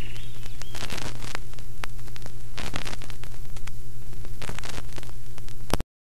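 Loud crackling static with a steady low hum underneath, many sharp crackles across it, cutting off abruptly just before the end.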